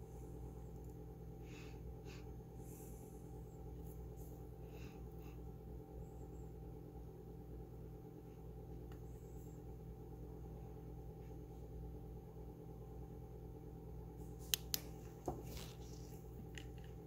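Steady low electrical hum of room tone. Near the end come a few sharp clicks and a knock as the UV flashlight is put down on the bench.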